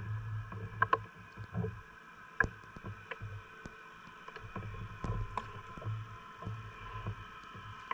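Scattered knocks, clicks and dull thumps of gear being handled on a small wooden fishing boat, over a steady high-pitched drone.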